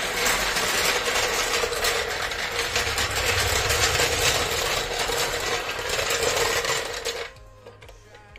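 Impact wrench running with a rapid hammering rattle on a wheel bolt, cutting off about seven seconds in.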